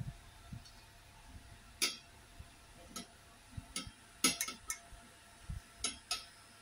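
Screwdriver turning a screw into a metal rack frame joint, giving about nine sharp metallic clicks and ticks at irregular spacing, several bunched together just past the middle.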